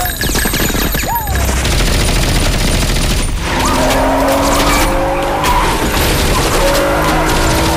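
Action-film sound mix of rapid gunfire over a car engine, with many sharp shots throughout and a steady engine-like drone coming in about halfway.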